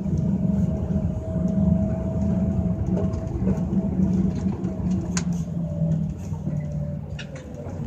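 Scania coach's diesel engine running at highway speed, heard from inside the cabin: a steady low drone with a thin higher whine over it, its pitch dropping slightly about six seconds in. A few faint clicks and rattles.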